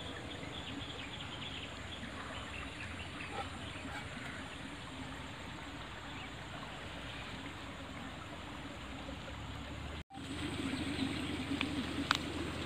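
A small stream trickling steadily. About ten seconds in, a brief cut breaks the sound, and after it the noise is louder and rougher, with a single click near the end.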